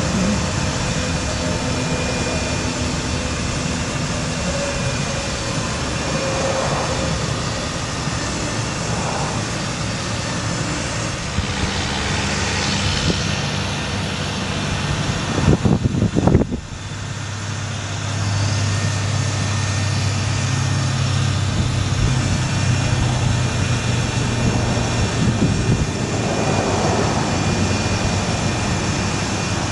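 Bucket truck's engine running with the hydraulic system working the aerial boom as it moves, a steady mechanical drone. About halfway through there is a brief louder clatter, after which a steadier low hum runs on.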